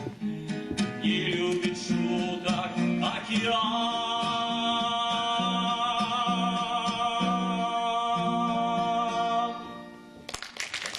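Song with acoustic guitar strumming and a singing voice holding one long final note. The music stops about ten seconds in.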